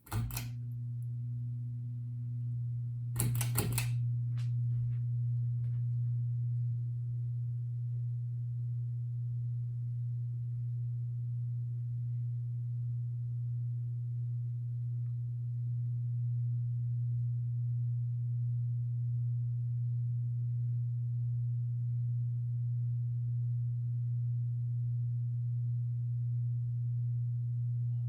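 Hampton Bay Minuet II ceiling fan, fitted with 42-inch blades, humming steadily with a low motor hum that starts with a click. A few more clicks come about three seconds in.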